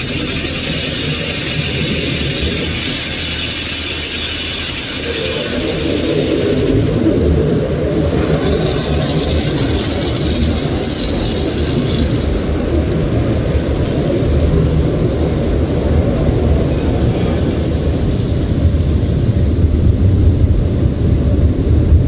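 Automatic tunnel car wash heard from inside the car's cabin: water spraying and hissing against the glass and body over a steady low rumble of the wash machinery. The spray comes in two long spells, the second ending about halfway through, and the rumble grows louder near the end.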